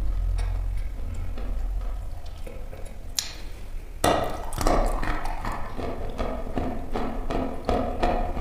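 Close-miked crunching of a lump of dry chalk being eaten: quieter chewing at first, then a loud bite into the chunk about four seconds in, followed by repeated crunching chews.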